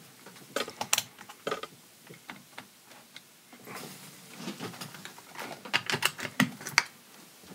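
Scattered light clicks and taps from handling a digital multimeter and its test probes, including its rotary dial being turned from resistance to DC volts, with a quick run of clicks near the end.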